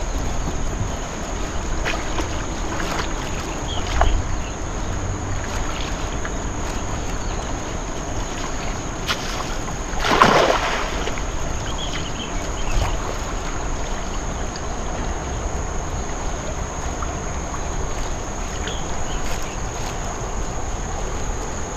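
Water sloshing around a man wading in a shallow, muddy river while he works a cast net, with one louder splash about ten seconds in as the net is thrown. Wind on the microphone adds a low rumble throughout.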